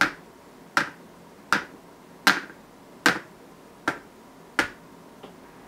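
A batter-filled plastic pancake mold being knocked against a wooden trivet: seven sharp taps a little under a second apart, then a faint eighth near the end.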